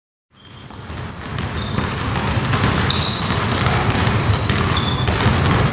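Basketball gym sounds fading in: sneakers squeaking on a hardwood court and a basketball bouncing, over a steady background din.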